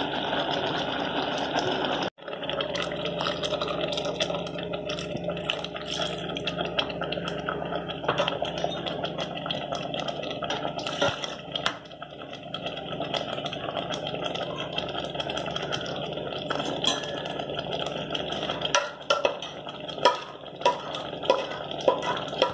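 Thick kheema curry boiling in an aluminium pot, with a steady bubbling hiss and many small pops from bursting bubbles. Several sharper pops come near the end.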